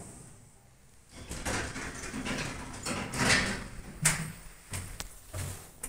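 Footsteps and handling rustle as someone walks into a lift car, with a sharp click about four seconds in.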